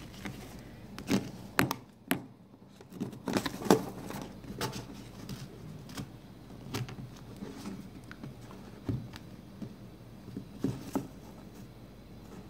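Plastic ID card being pushed into a slot of a polyester card holder, with scattered short clicks, taps and rustles as fingers handle the card and holder.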